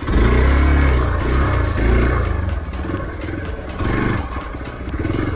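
Hero XPulse 200 4V motorcycle's single-cylinder engine revving hard. It cuts in suddenly, loudest in the first second, then rises and falls in surges.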